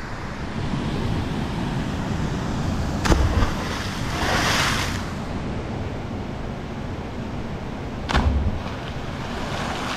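A jumper plunging into a river: a sharp thump as the body hits the water, then about a second and a half of hissing spray, over the steady rush of the river's rapids. A second thump comes near the end.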